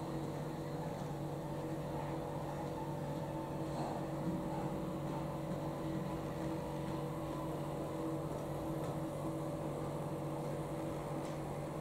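00 gauge model trains running: a steady electric whir and hum from the locomotives' small motors and wheels on the track, with a few faint clicks.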